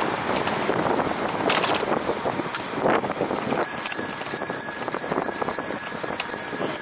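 Bicycle on the move: wind and road noise, joined about halfway through by a high, metallic ringing that keeps breaking off and starting again until the end.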